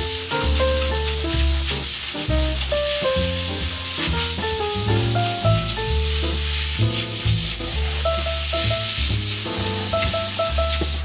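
Background music: a melody of short held notes over a bass line, with a steady hiss layered on top.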